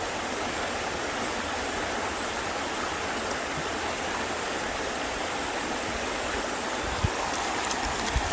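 River water flowing steadily, an even rushing sound.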